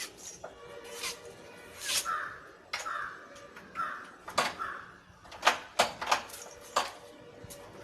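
A towel worked through wet hair, giving a series of sharp swishes and slaps at irregular intervals. A bird calls four times in the background between about two and five seconds in.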